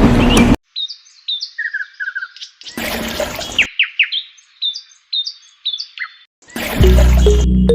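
Small birds chirping in short, quickly repeated calls, with a brief burst of noise about three seconds in. Music comes in near the end.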